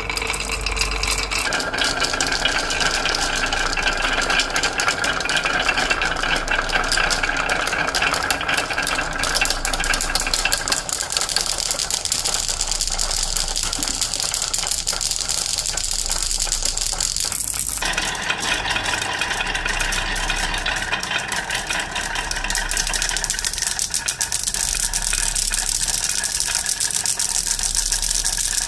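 Many marbles rolling and clattering down a marble run track, a dense, continuous stream of clicks and rattles. The sound changes abruptly about two-thirds of the way through.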